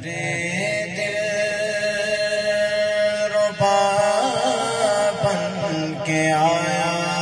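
Men's voices chanting a devotional naat: a long, drawn-out melodic line with wavering ornaments, held over a steady low drone.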